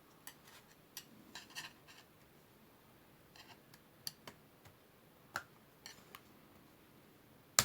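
Light, scattered plastic clicks and taps as the HP EliteBook 2570p laptop keyboard is worked loose from the small plastic pins that hold it in the chassis, with one sharp, louder click at the very end.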